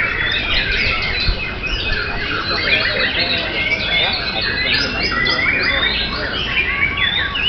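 White-rumped shamas (murai batu) singing in competition: a dense, unbroken stream of whistles and quick chattering phrases, many notes overlapping.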